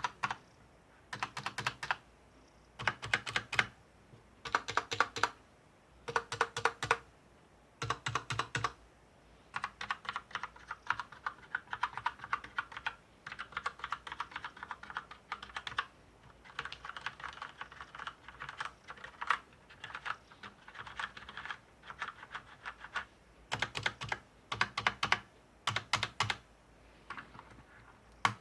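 Mechanical keyboard with linear Outemu red switches being typed on, in clusters of rapid keystrokes. The large stabilized keys are pressed in quick runs with a deeper thud, and the middle stretch is steadier, continuous typing.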